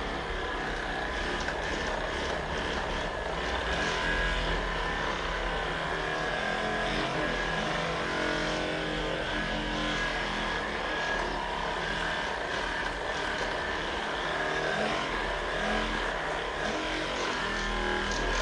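A steady mechanical hum, like a small electric motor running, with a low rumble and a few steady tones.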